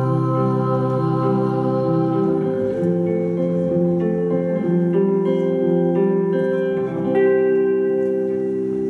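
Live indie-pop band music: electric guitars and bass playing held chords that change about once a second, stopping at the very end.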